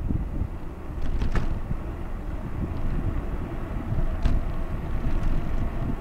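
Wind buffeting the microphone of a camera moving along a road, a low fluttering rumble, with a couple of short ticks or rattles about a second in and again about four seconds in.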